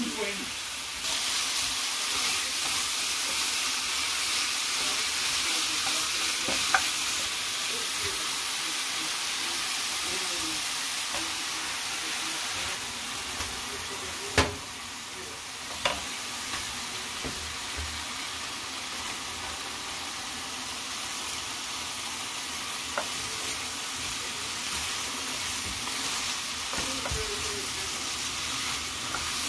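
Scrambled eggs with chopped hot dog and bologna sizzling steadily in a nonstick skillet, with a wooden spoon stirring and a few sharp knocks against the pan, the loudest about halfway through.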